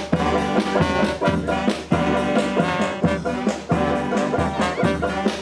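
Brass street band playing their original boogaloo tune live: horn lines with sustained notes over a steady, driving drum beat.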